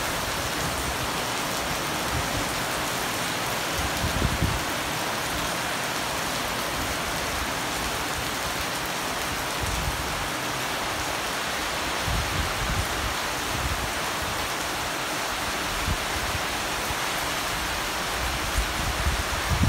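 Heavy monsoon rain pouring steadily onto a tiled courtyard and garden plants, an even hiss, with a few brief low rumbles mixed in.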